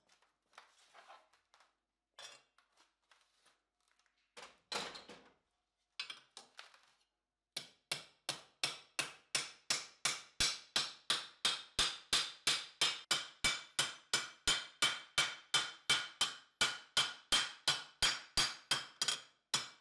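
Hammer blows on a curved steel cuirass plate held over the jaws of a bench vise, shaping the metal. After a few scattered clinks, a steady run of ringing strikes at about three a second begins some seven seconds in.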